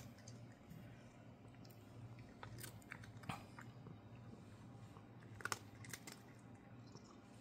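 A cat chewing crunchy dry cat treats: faint, irregular crunches and clicks, with a louder cluster a little past halfway.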